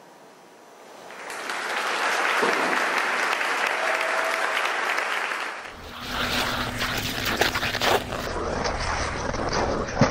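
Audience applauding, swelling up about a second in. About halfway through the sound changes to sharper claps over a low rumble.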